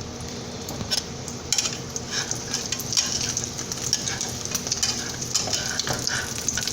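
Egg omelet sizzling and crackling in hot oil in a skillet, with a spatula clicking and scraping against the pan now and then.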